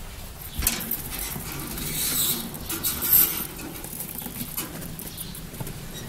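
Rustling and scraping from a hand handling a wire birdcage and its wooden nest box, with a sharp knock about half a second in and the loudest knock about three seconds in.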